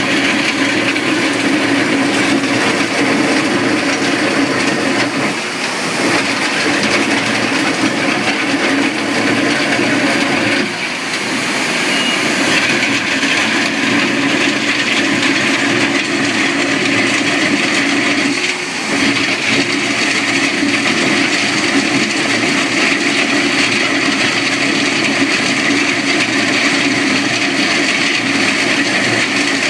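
Takeuchi TL12R2 compact track loader working with a Simex PL 450 milling attachment cutting a trench: a loud, steady mechanical noise, with brief dips about 5, 11 and 19 seconds in.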